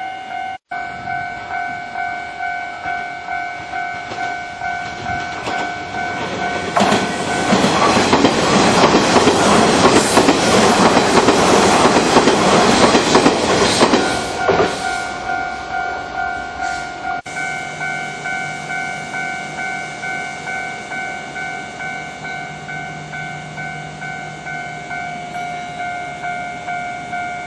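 Japanese level-crossing alarm ringing its steady 'kan-kan' beat throughout, while an electric commuter train passes over the crossing for about eight seconds in the middle, its wheels rumbling and clattering over the rails.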